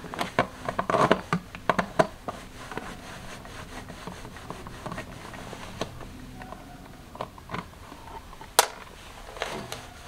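Small clicks and taps of a nut driver and screws being worked and handled at an RV water heater's access cover, busiest in the first two seconds and then scattered, with one sharp click near the end.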